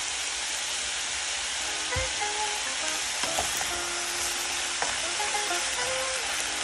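Sliced vegetables and mushrooms sizzling as they fry in a pot, stirred with a spatula, with a few sharp knocks of the spatula against the pot.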